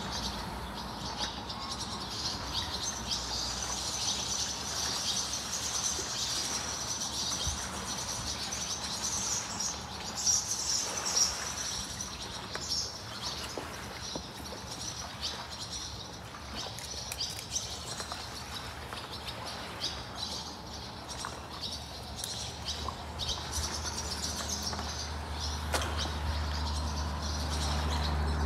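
Small birds chirping and twittering continuously, a little louder about ten seconds in, over a low steady background rumble.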